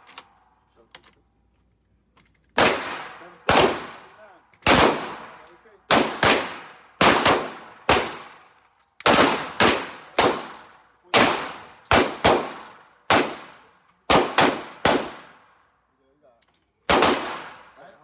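A string of about twenty single shots from a 7.62 AK-pattern pistol, fired semi-automatically at an uneven pace with a short pause near the end, each shot trailing off in a long echo.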